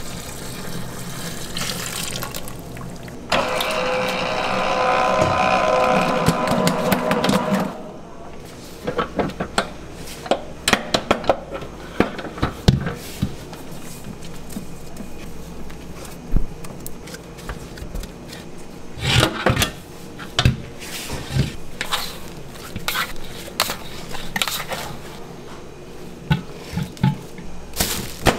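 Water running into a container for about four seconds, followed by scattered knocks and clatter of utensils being handled.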